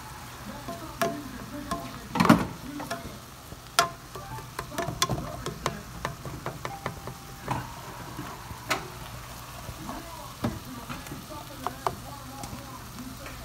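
Ground turkey sizzling in a pan while a spatula stirs and breaks it up, with irregular scrapes and clicks against the pan; the loudest scrape comes about two seconds in.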